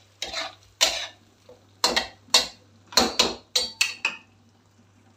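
A spatula knocking and scraping against a metal wok while pieces of mutton liver are stirred in oil. It makes about nine irregular clacks that stop around four seconds in.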